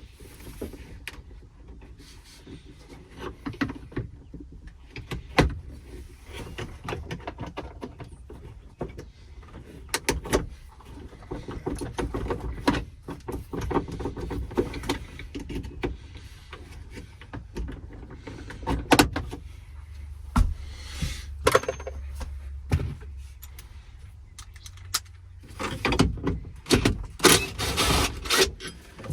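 Hand tools working on a pickup's interior trim and seat-belt hardware: irregular clicks, knocks and metal clinks, with a busier run of them near the end.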